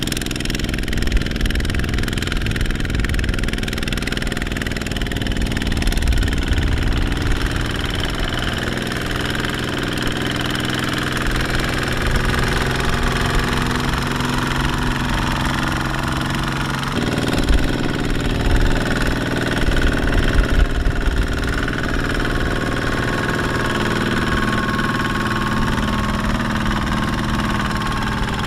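Kubota single-cylinder diesel engine of a two-wheel walking tractor running steadily while pulling a loaded trailer through mud. Its pitch changes abruptly about two-thirds of the way through.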